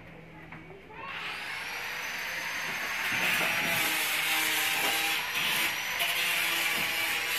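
An electric power tool starts up about a second in, its whine rising as the motor spins up, then runs steadily with a harsh hissing grind that grows louder about three seconds in.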